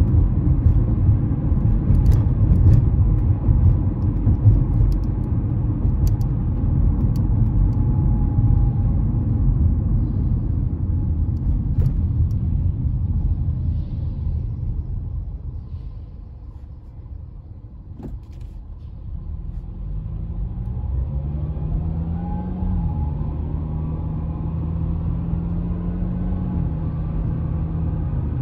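Honda CR-V driving: a low road-and-tyre rumble fades as the car slows almost to a stop, then the engine tone rises in steps as it pulls away again.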